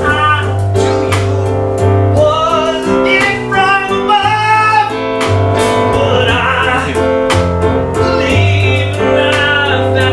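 Live keyboard accompaniment with a voice singing over it: held bass notes under a wavering sung melody, with a steady beat of sharp ticks.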